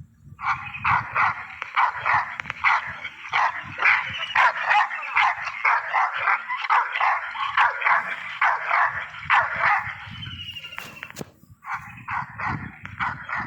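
Dog barking rapidly and repeatedly in high yapping barks, with a short break about eleven seconds in before the barking starts again.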